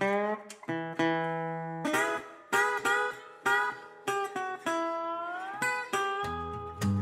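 Background music: an acoustic guitar picking single notes, one note sliding up in pitch about five seconds in, with low bass notes coming in about six seconds in.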